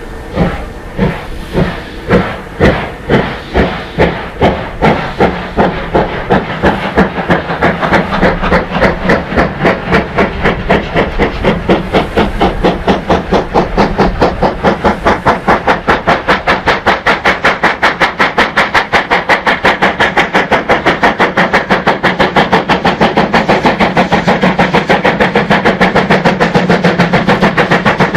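DR class 41 steam locomotive 41 1185 starting a train with loud exhaust beats from the chimney, about two a second at first and quickening steadily into a fast, even chuff as it gathers speed. A continuous hiss of steam from the open cylinder drain cocks runs under the beats.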